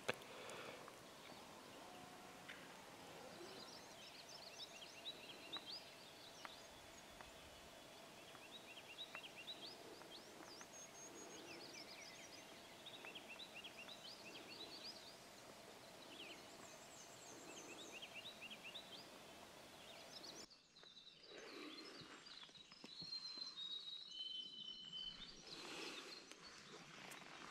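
Faint songbirds singing from the forest: many short, repeated chirping phrases over a low background hiss. About two-thirds through the sound cuts to clearer held whistled notes from a bird, with some rustling handling noise near the end.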